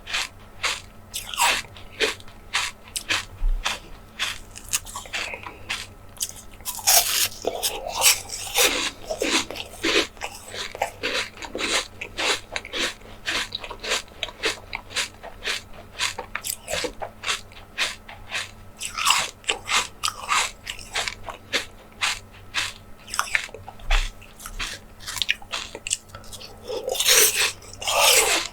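Close-miked ASMR eating of jelly desserts: biting and chewing, a fast run of sharp short clicks several times a second, with a few longer louder bites.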